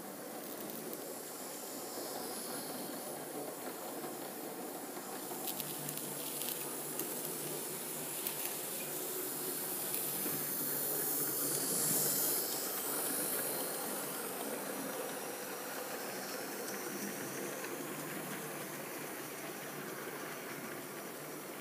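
Model railway trains running on the track: a steady hiss and rumble of wheels and motors that swells as one train passes close, about halfway through, with a few light clicks before that.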